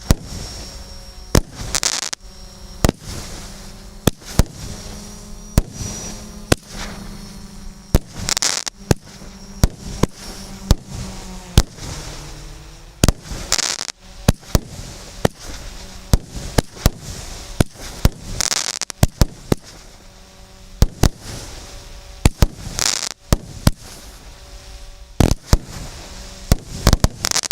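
A 25-shot firework cake of 0.6-inch (17 mm) tubes firing its shots in sequence. Sharp reports come one to three a second at an uneven pace, with a louder, longer burst about every five seconds.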